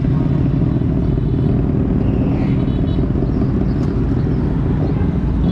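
Steady rumble of a motorcycle being ridden, its engine running under a dense low road-and-wind noise.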